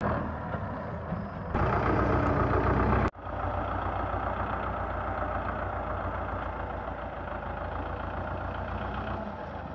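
Belarus 510 tractor's diesel engine running; it gets louder about a second and a half in, then breaks off abruptly about three seconds in. After that it runs steadily with an even low throb while the front loader works.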